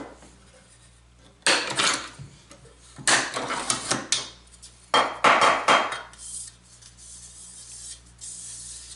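Three bursts of hand strokes abrading the sawn edge of an aluminum piece, deburring it so the edge won't cut anyone, followed by a quieter, lighter rubbing near the end.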